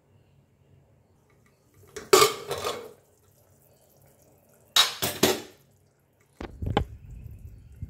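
Prestige aluminium pressure cooker lid being twisted off and set aside: two short bursts of metal clatter and scraping, about two seconds in and again near five seconds, followed by a low rumble of handling near the end.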